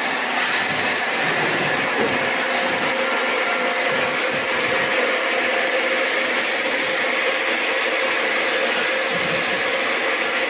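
Automatic scaffolding-pole welding machine running with a steady, dense hissing machine noise and a faint steady hum, with a couple of brief high squeals.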